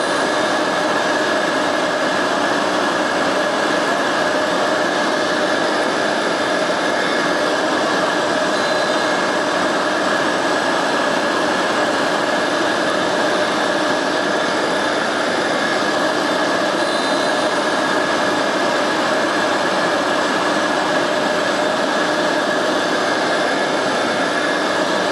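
Tool and cutter grinder running with its wheel lightly grinding the flutes of a worn end mill, mixed with a vacuum drawing off the grinding dust. It is a steady rush of noise with a few constant tones through it, unchanging throughout.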